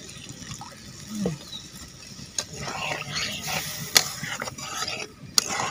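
Flat metal spatula stirring and scraping through pork curry in an iron wok, with a few sharp knocks against the pan, just after water has been added.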